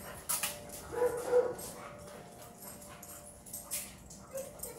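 Dog whining briefly about a second in, with scattered clicks and scuffs of footsteps on the concrete floor.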